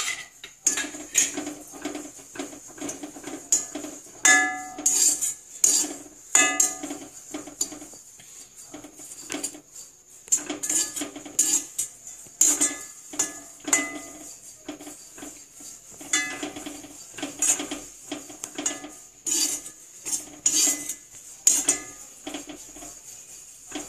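Steel spatula scraping and clinking against a kadai, stirring neem flowers as they dry-roast without oil: repeated quick strokes in bursts, some leaving a short metallic ring.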